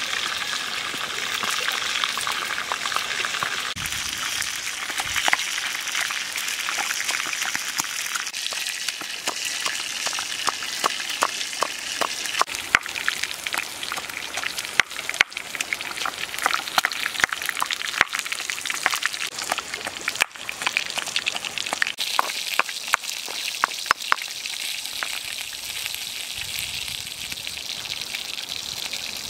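Stone pestle pounding chilies in a stone mortar: a long run of sharp knocks that starts about a quarter of the way in and stops near the end. Underneath is the steady rush of a shallow stream.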